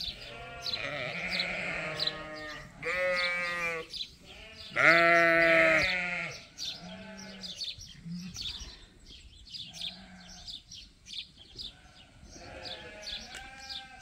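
Sheep from a Suffolk and Poll Dorset flock bleating: a string of long, wavering bleats one after another, the loudest about five seconds in, then fainter, more scattered bleats.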